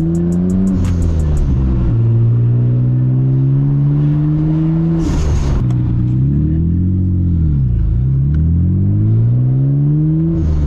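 Nissan Skyline GT-R R32's RB26DETT twin-turbo straight-six accelerating hard through the gears. Engine pitch rises, drops at each shift and climbs again, with a short hiss at the gear change about five seconds in and again at the end.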